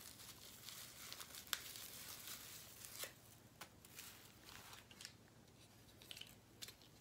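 Faint rustling and crinkling of craft materials being handled by hand, with a few light clicks scattered through it. The rustle fades after about three seconds.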